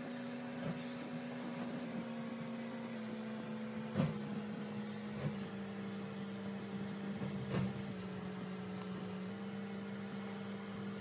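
Steady electrical hum with a second, higher hum above it, shifting slightly in pitch now and then, with a few light knocks, the clearest about four seconds in.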